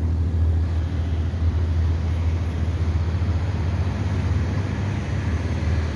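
Cart-mounted engine running steadily with a low drone.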